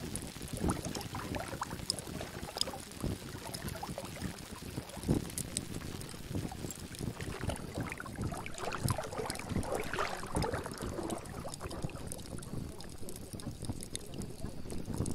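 Continuous irregular water noise, with lapping and splashing, used as the masking track of a subliminal affirmation audio.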